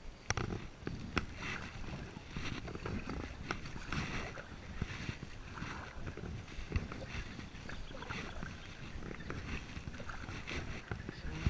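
Kayak paddling: a double-bladed paddle dipping in and pulling through the water in a steady rhythm, splashing about once a second, with water running off the blades.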